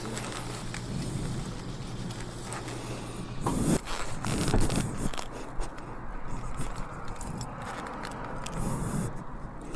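Thin plastic takeout bag rustling and crinkling as it is handled and carried, with scraping and clicking handling noise. A steady low hum sits underneath for the first few seconds and stops about three and a half seconds in.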